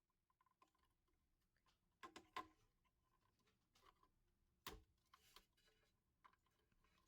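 Near silence with faint scattered clicks and taps of small wire connectors being worked loose from a plasma pen's motherboard, with two louder clicks about two seconds in and a sharper one near five seconds.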